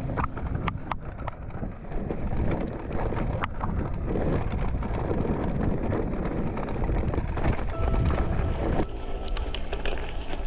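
Wind buffeting the microphone over the rattle and rumble of a mountain bike descending a rough, stony dirt trail, with scattered sharp clicks. About nine seconds in, the rumble drops as the bike rolls onto a smoother gravel track.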